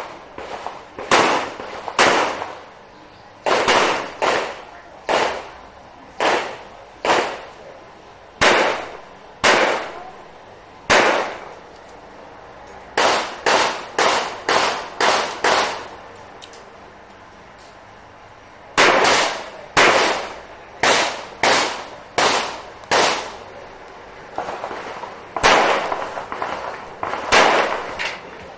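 Revolver shots fired during a timed action-shooting stage: about thirty sharp reports in quick strings, each with a short echoing tail. The strings are broken by pauses of a few seconds, the longest about a third of the way from the end.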